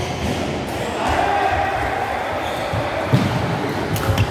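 Badminton rally in a large indoor hall: players' feet thud on the court, and there are sharp racquet-on-shuttlecock hits near the end, over a murmur of voices around the hall.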